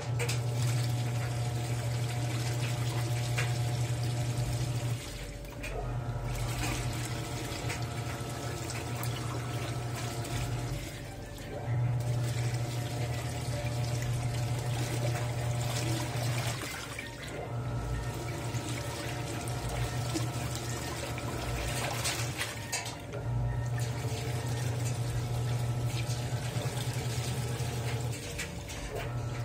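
Panasonic NA-F160B5 16 kg top-loading washing machine agitating a full load of t-shirts in water. The motor hums in runs of about five seconds, with a short pause between each run as the agitator reverses, over constant sloshing of water and clothes.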